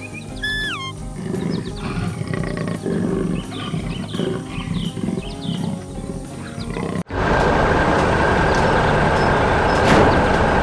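Cartoon background music with sliding sound-effect tones, then about seven seconds in it cuts abruptly to a loud, steady rushing rumble that runs on to the end.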